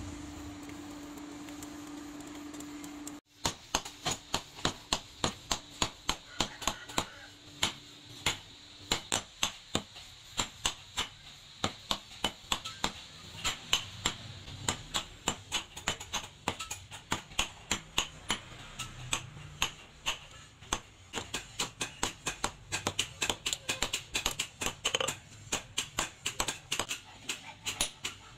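A steady hum for about three seconds that cuts off, then a hand hammer forging red-hot rebar on a small steel post anvil: even, ringing metal-on-metal strikes, about two a second.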